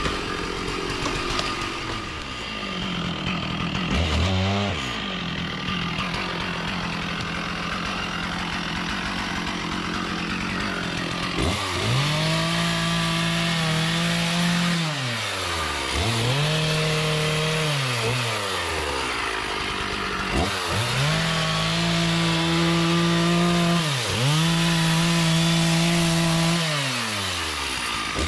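Two-stroke chainsaw cutting into a teak trunk. It runs at high revs and steady for several seconds. From about the middle on, it is throttled up and down four times, each surge rising, holding and dropping back.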